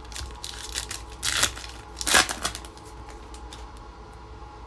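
Topps trading-card pack wrapper being torn open and crinkled in the hands, several rustling bursts over the first two and a half seconds, the loudest a little after two seconds in.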